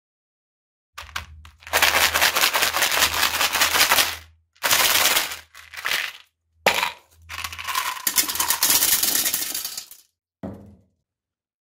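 Mentos candies rattling out of a plastic jar and clattering into a ceramic toilet bowl: a dense, rapid clatter in three long pours with short breaks between them.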